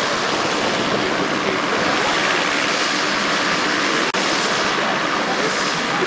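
Twin-engine turboprop plane taxiing, its engines giving a steady, loud, hissing roar.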